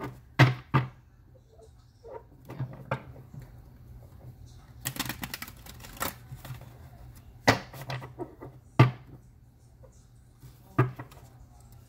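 Tarot cards being hand-shuffled: the deck is cut and squared with several sharp taps and clacks of the cards knocking together, spaced irregularly every second or two, with softer card rustling between them.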